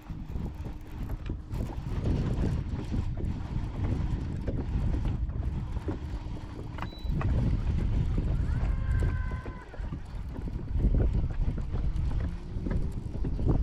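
Wind buffeting the microphone: an uneven low rumble that swells and eases throughout, with a brief faint whistle-like tone about nine seconds in.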